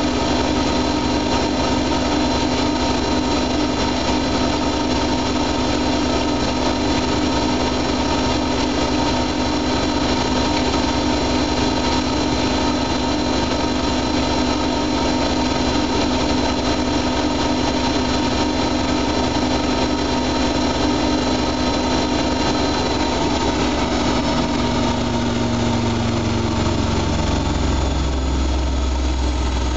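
Siemens Siwamat iQ washing machine in its spin, the drum turning at high speed with a steady motor whine. Near the end the whine drops in pitch as the spin winds down.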